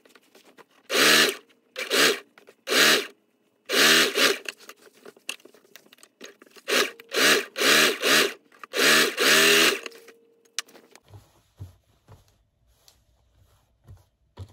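Singer electric sewing machine stitching a seam in a series of short runs, the motor speeding up and slowing with each run; the longest run ends about ten seconds in.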